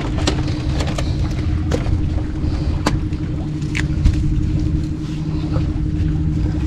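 A small engine running steadily at an even pitch, with a few light clicks and taps over it.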